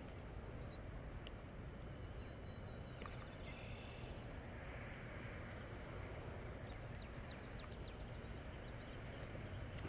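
Quiet outdoor ambience by a pond: a steady low rumble with faint high chirps, a quick chirring run about three seconds in and scattered short chirps in the second half.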